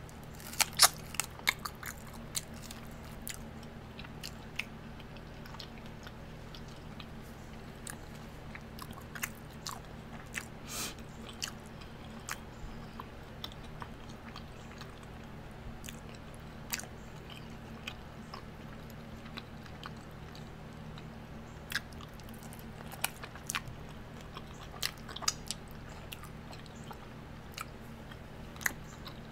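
Close-miked eating of fried hot wings: wet chewing, lip smacks and sharp clicky bites, bunched in the first few seconds and again near the end. A steady low hum runs underneath.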